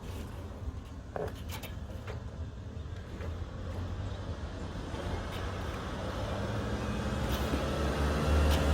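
An engine running with a steady low hum that grows steadily louder, with a few light clicks and knocks in the first couple of seconds.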